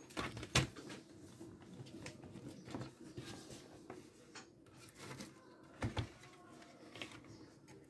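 Scattered light clicks and knocks of a console motherboard and its parts being handled, with two sharper clicks, over a faint steady hum.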